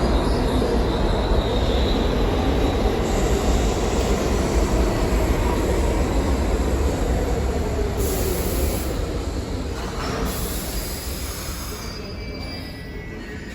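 R68 subway train running on the rails with wheel squeal. The noise dies down over the last few seconds.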